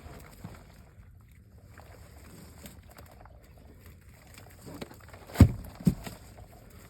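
Two heavy thumps about half a second apart near the end, the first the louder, against low boat noise and small scattered knocks.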